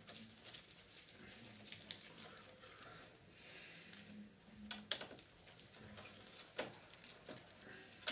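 Faint clicks and scrapes of hands and a screwdriver working a small metal bracket loose on a Sanyo VHR-7700E video recorder's chassis. There are sharper clicks about five and six and a half seconds in, and a loud click near the end.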